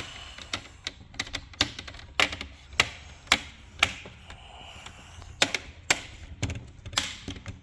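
Plastic laptop screen bezel clips snapping into place as the bezel is pressed down around the screen: a string of sharp, irregular clicks, a couple a second.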